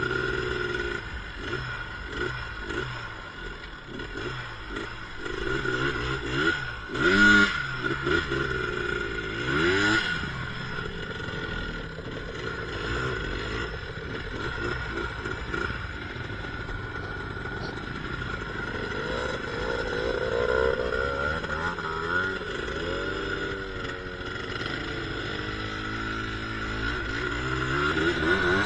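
ATV engines running on a trail ride, the pitch climbing and falling with the throttle. There is a sharp rev about seven seconds in, and the engine builds again near the end.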